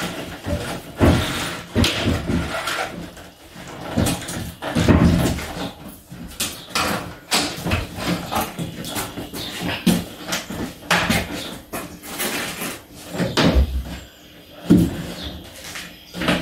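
A bicycle and Thule bike rack being handled: irregular knocks, clicks and rattles as the rubber wheel straps are hooked and tightened.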